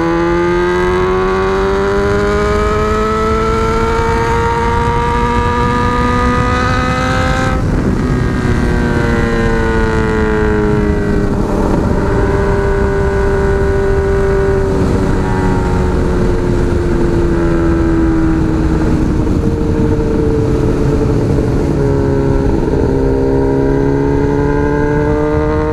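Honda Hornet CB600F inline-four running loud through an open megaphone exhaust while riding: the revs climb for the first seven seconds or so, break at a gear change, then the note eases down and holds, rising and dipping a little later on. Wind noise rushes steadily underneath.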